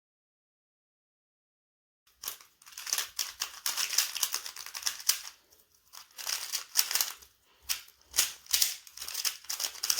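A Rubik's cube being turned quickly by hand, its plastic layers clicking and clacking in rapid irregular runs. It starts about two seconds in, after dead silence.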